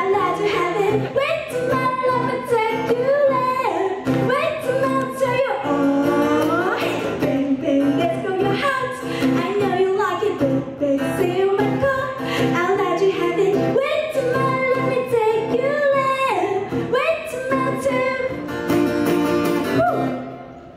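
A woman singing sliding, wavering vocal runs over guitar accompaniment; the music drops away near the end.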